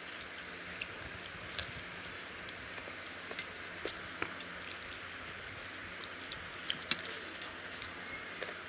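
Eating by hand from steel plates: fingers working rice and curry, with scattered small clicks and smacks over a steady hiss.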